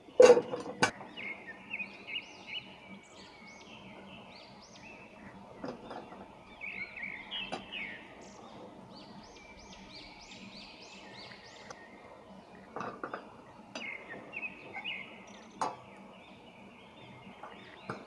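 Wet raw potato sticks dropped by hand into a perforated aluminium colander, with sharp knocks and light clatter against the metal, the loudest twice just at the start, and water dripping from the hand into the bowl. Birds chirp over and over in the background.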